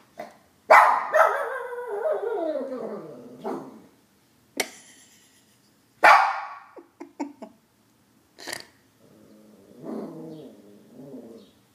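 Shih Tzu howling: one long howl that slides down in pitch, then a few short bark-like yelps, and a lower, wavering howl near the end.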